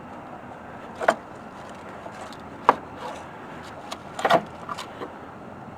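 A few scattered light knocks and clicks of hand work on a car's underside, about one every second or two with a small cluster near the end, over a low steady background.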